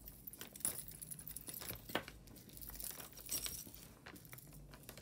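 Costume jewelry being handled: faint crinkling and rustling with scattered light clicks and clinks of metal and beads.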